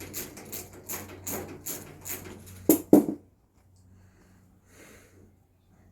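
Hand work on metal car parts: a run of rhythmic scraping strokes, about three a second, then two loud knocks about three seconds in, over a steady low hum.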